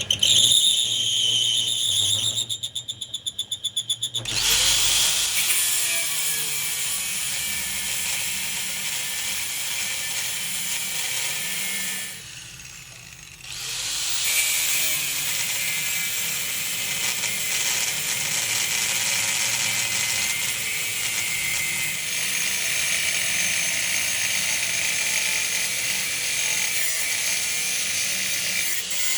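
Power tool running steadily while working a metal gear shaft, with a short drop in level about twelve seconds in.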